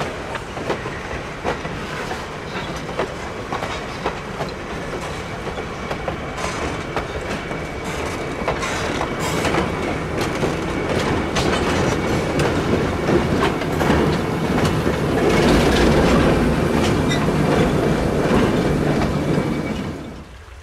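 Diesel-hauled train rolling past, its wheels clicking over the rail joints and a thin steady squeal from the wheels, growing louder as it comes closer. The sound cuts off suddenly near the end.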